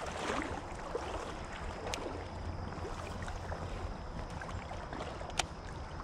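Faint water sloshing from someone moving through a shallow creek, over a low steady rumble. Two sharp clicks stand out, about two seconds in and again near the end.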